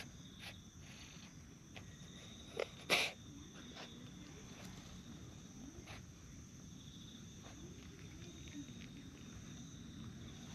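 Steady high insect chirping in the background, with a short sharp knock about three seconds in and a few faint clicks.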